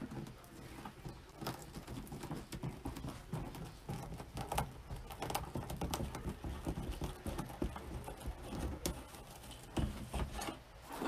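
Stiff poly deco mesh rustling and crinkling as it is rolled and scrunched by hand into ruffles on a cutting mat, with many small irregular crackles and clicks.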